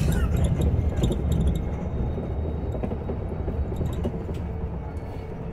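Cabin noise inside a moving Olectra K9 electric bus: a steady low road and tyre rumble with no engine note, a little louder for the first second and a half, with light rattles.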